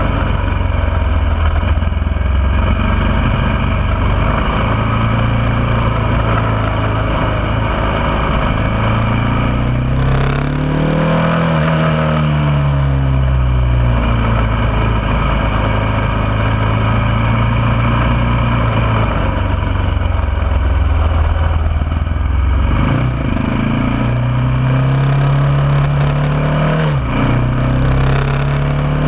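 Motorcycle engine heard from onboard while riding a track, the revs rising and falling through the gears, with a pitch drop and climb back up about ten seconds in and again near the end, over a steady rush of wind and road noise.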